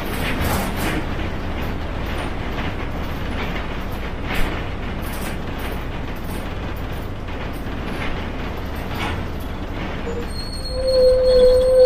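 Yangzijiang WG6100NQC4 city bus heard from inside, its front-mounted NQ160N4 engine running steadily under road noise, with short body rattles now and then. About ten seconds in, a high brake squeal sets in as the bus slows.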